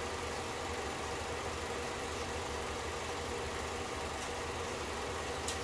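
Elmo FP-C Zoom Dual 8mm film projector running steadily, a continuous motor hum and film-transport whir with hiss, with a single sharp click near the end.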